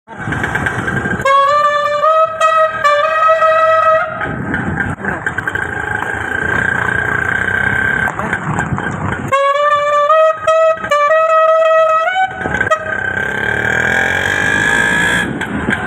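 A loud melodic tune of a few held notes, heard twice, over the noise of a busy street.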